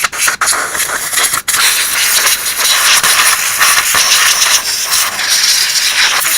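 Can of compressed-air duster spraying, blowing dust out of a tube radio chassis: a couple of short hissing bursts, then one long continuous blast from about a second and a half in.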